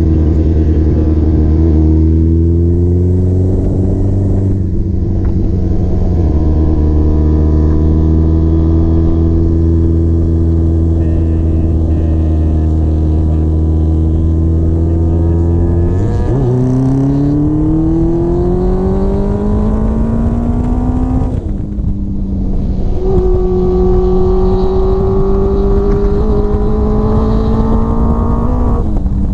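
Motorcycle engine heard from on board while riding, with wind and road noise. It cruises at a fairly steady pitch at first, then about halfway through the revs climb through a gear, drop sharply at a gear change, and climb again toward the end.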